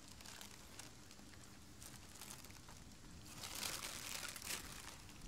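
Faint rustling and crinkling of aluminium foil and cloth as hands handle a foil-wrapped packet and rummage in a knitted bag, growing louder for about a second and a half a little past the middle.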